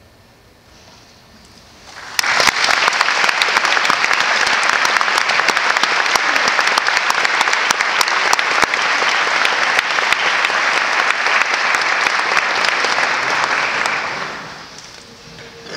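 Audience applauding, starting about two seconds in, holding steady and loud, then dying away near the end.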